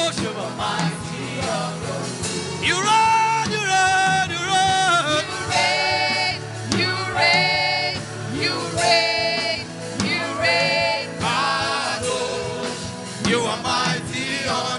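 Gospel worship music: a voice sings long, sliding phrases over a steady instrumental backing.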